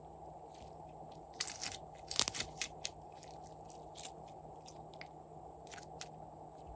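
Glossy slime being squished and mixed by hand, giving scattered crackling clicks and pops, with a burst of louder ones about one and a half to three seconds in.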